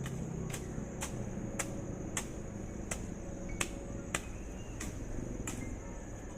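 Repeated sharp strikes of a hand tool, about two a second at an uneven pace, as in chopping or hacking at ground cover while clearing a plot, with a steady high-pitched hum behind.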